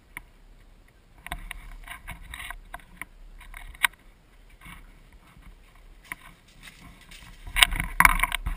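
Irregular rustling and knocking from a rifle-mounted camera being carried and jostled, in several short bouts with pauses; the loudest clatter comes near the end.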